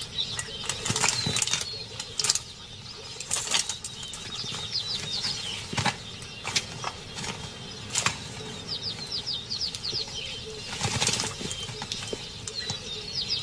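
Leopard cubs scrabbling and rustling as they climb in a tree, with irregular scratches and knocks of claws on bark and branches. Birds chirp in quick runs in the background, several times.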